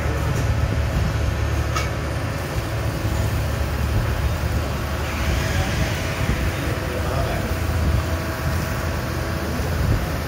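Neway crankshaft grinding machine running, its grinding wheel working a crankshaft journal under flowing coolant: a steady low machine hum with a splashing hiss.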